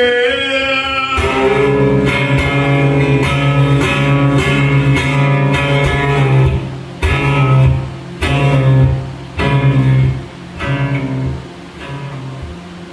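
Acoustic guitar strummed in steady, loud chords, with a sung note trailing off about a second in. Past the middle the playing breaks into separate struck chords with pauses between them, getting quieter toward the end.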